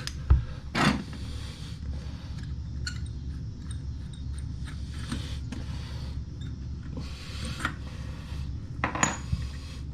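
Hand wrenches clicking and knocking against the metal compression fitting of a toilet supply line: a few sharp clicks just after the start, about a second in and near the end, over a steady low hum.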